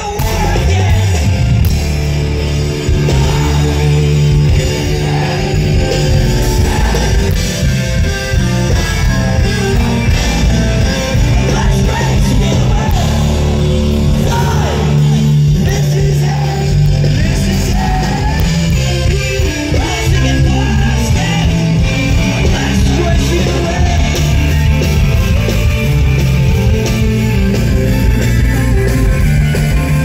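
Loud live rock band playing: distorted electric guitars, bass and drums, with a singer's voice over them.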